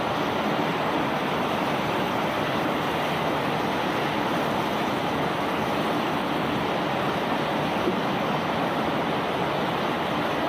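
Conveyor belt carrying rock, a steady, even rushing noise with no breaks.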